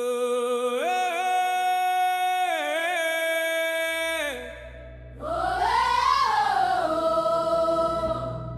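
Song intro: choir-like voices hold a sustained note that steps up in pitch about a second in and fades just after the midpoint. A low bass drone then comes in under a wordless chanting voice that rises and falls.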